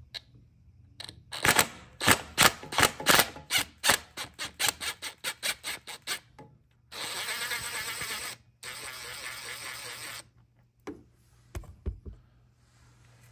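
Cordless impact driver with a 1/4-inch hex bit loosening a transmission side cover bolt. Started slowly, it gives a run of separate hammer blows that come faster and faster, then it runs in two continuous bursts of about a second and a half each as the bolt backs out. A few light clicks follow near the end.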